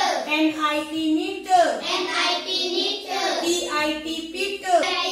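A child chanting words aloud in a sing-song voice, phrase after phrase, as in reading a list of rhyming words off a board.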